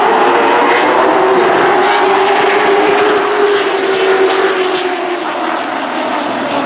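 A pack of late model stock cars running together, their V8 engines making a steady, loud drone that eases off a little in the second half.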